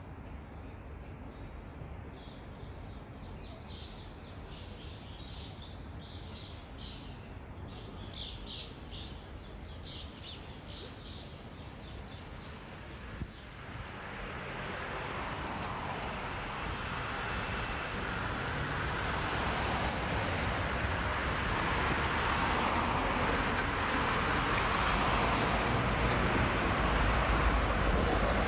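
Birds chirping over a quiet outdoor background. About halfway through, an abrupt cut brings in steady city traffic noise that grows louder toward the end.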